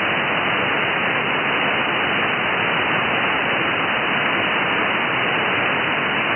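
Steady hiss of receiver noise from an Icom IC-705 transceiver's speaker in single-sideband (USB) mode, tuned to the QO-100 satellite's narrowband transponder with no station on the frequency.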